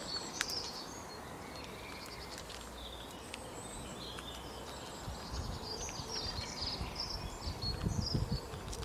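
Outdoor garden ambience with small birds chirping and trilling in short repeated phrases. An irregular low rumble comes in during the second half.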